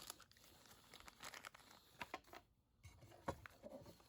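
Faint, scattered small clicks and scrapes of hand work on a small wooden workpiece, a few a second, with a brief pause about halfway through.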